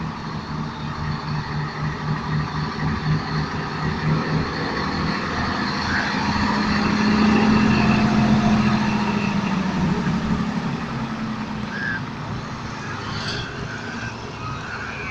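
Diesel engine of a red semi tractor rolling slowly past at close range. At first it is a low throb pulsing a few times a second, then it swells to its loudest as the truck goes by about halfway through, and fades as it moves off.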